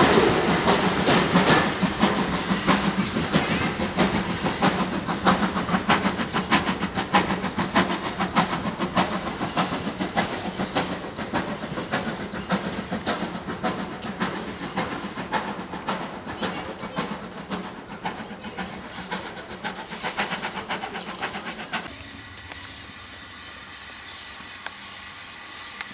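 Heritage passenger train's coaches running away after passing close by, wheels clattering rapidly over rail joints and fading steadily. Near the end the sound changes abruptly to a quieter, distant rail sound with a steady hiss.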